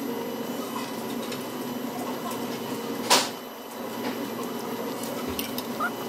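A child slurping a noodle once: a short, loud hiss about three seconds in, over steady dining-room background noise.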